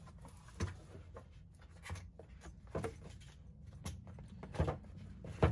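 Cardboard product box being handled and opened: scattered rubbing, rustling and light knocks as an ARB digital tire inflator and its red hose are taken out, with the sharpest knock near the end.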